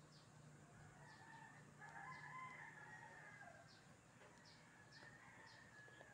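Faint, distant bird calls: one longer call about two seconds in, with short high chirps repeating throughout.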